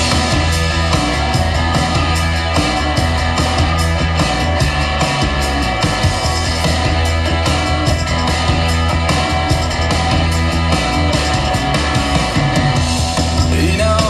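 Music with a heavy bass line and a steady drum beat, played loud through a Pyle PPHP-159WMU 15-inch powered PA speaker in a sound test.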